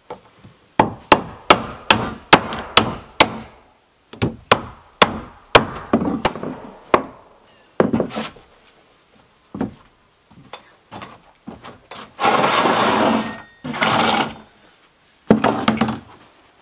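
A hammer striking the wooden porch deck boards: runs of sharp blows about two a second, then a few scattered knocks. A second or so of rough scraping noise follows, then a last quick run of blows near the end.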